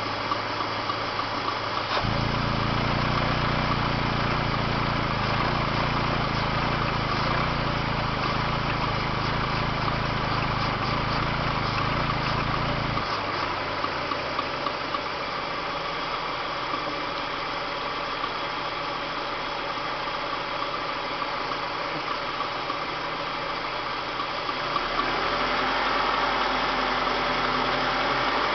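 BMW M43TU four-cylinder engine running with a repeated sharp tapping. It speeds up about two seconds in, drops back to idle around thirteen seconds, and picks up again near the end. The owner suspects the timing chain or a dead hydraulic lifter.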